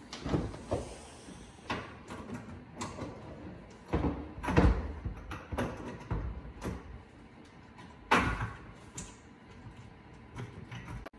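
Irregular knocks and clunks of speaker-mounting hardware being handled and fitted in a pickup truck bed. The loudest knocks come about four and a half seconds and eight seconds in.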